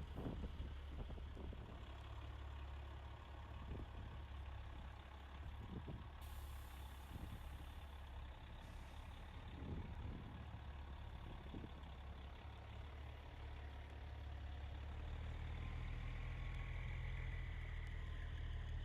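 Diesel engines of big-rig semi trucks running as they roll slowly past in a line, a steady low rumble that grows louder about fifteen seconds in.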